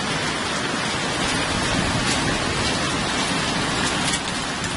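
Heavy rain falling steadily: a dense, even hiss of downpour.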